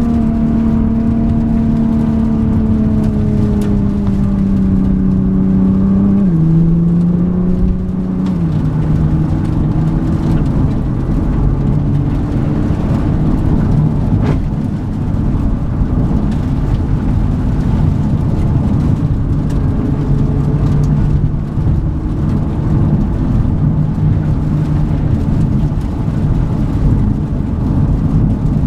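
Nissan GT-R's twin-turbo V6 running under steady throttle over a constant rumble of tyre and road noise on a wet road. The engine note sinks slowly, drops in pitch in two sudden steps about six and eight seconds in, then holds steady.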